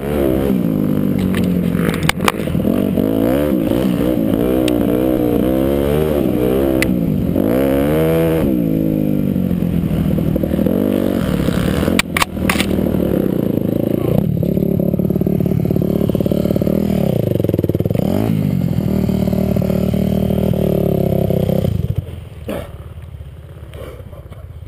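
Dirt bike engine being ridden hard on a sandy trail, its pitch rising and falling over and over as the throttle is worked, with a few sharp knocks and clatter from the bike hitting bumps. About 22 seconds in, the engine sound cuts off suddenly as the bike crashes into the brush, leaving rustling and clatter.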